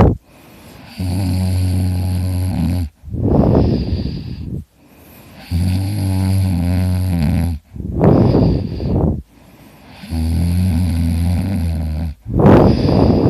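A person snoring in their sleep. The snore comes three times, each a low, steady buzzing snore of about two seconds followed by a shorter, breathy rush of air.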